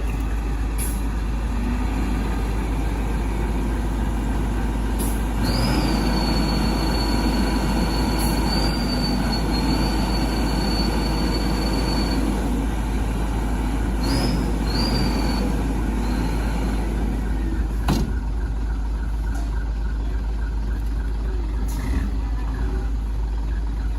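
Heavy diesel machinery, an excavator and a mud-stuck dump truck, running under load during a reverse tow. The engine noise swells about five seconds in, with a high steady squeal lasting about six seconds, then two short squeals and a sharp knock later on.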